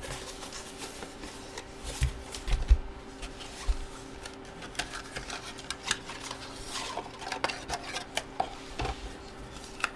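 Hands handling cardboard and plastic packaging: scattered clicks and rustles, with a few soft thumps about two to three seconds in, over a faint steady hum.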